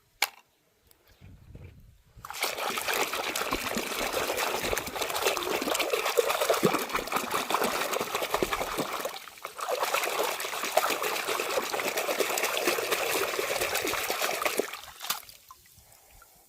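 Water running and splashing, most likely over toys being washed, in two spells of several seconds with a short break about halfway.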